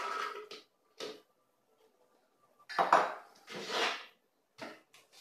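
Pomegranate seeds being tipped into a plastic blender jar, heard as several short bursts of clatter, the loudest about three seconds in.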